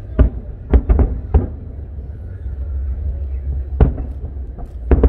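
Aerial fireworks shells bursting: a quick run of about five booms in the first second and a half, then single booms a little before four seconds in and near the end, over a steady low rumble.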